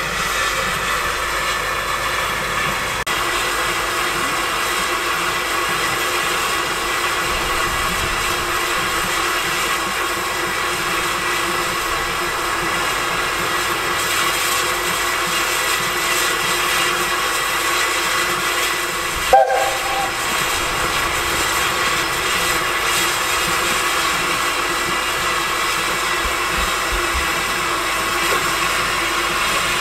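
Narrow-gauge steam locomotive moving slowly alongside a platform, with a steady hiss of steam throughout. About two-thirds of the way in it gives a short toot of about half a second.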